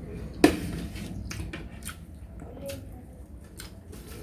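Tabletop handling noises: one sharp clack about half a second in, then scattered light clicks.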